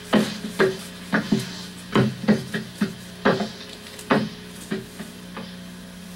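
Push broom sweeping a wooden floor platform: about a dozen quick scraping strokes at an uneven pace, dying away about five seconds in.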